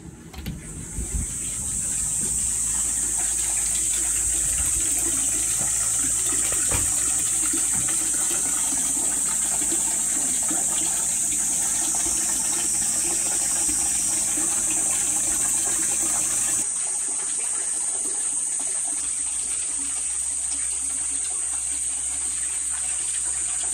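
Water pouring steadily from a spout into a full ceramic outdoor bath tub, a constant splashing rush. A few clicks at the start as a door latch and lever handle are worked open.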